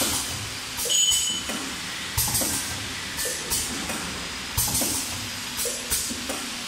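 Wet tissue production machine running: a steady mechanical hum with a repeating stroke, a knock and a short hiss, about once every second or so. A brief high squeak about a second in.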